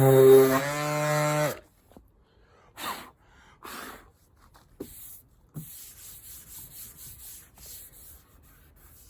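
Power sander running steadily on the car's clear coat, then switched off about a second and a half in, its motor spinning down. Soft, intermittent rubbing and brushing sounds follow on the sanded panel.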